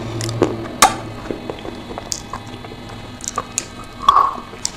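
Close-miked wet mouth sounds: lips smacking and tongue clicking with soft, creamy chalk-clay paste in the mouth, scattered sharp clicks, and a louder wet squelch about four seconds in as a soft coated piece is bitten.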